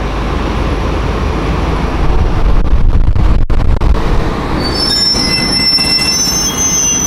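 JR Freight EH800 electric locomotive (EH800-1) moving slowly past at close range with a steady low rumble. From about four and a half seconds in, its wheels squeal in several high pitches.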